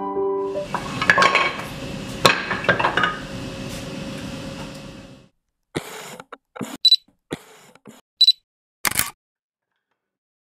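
Wooden frame pieces being knocked together with a hammer at a workbench: a run of knocks and wooden clatter, then several separate sharp hits, two of them clinking with a short high ring.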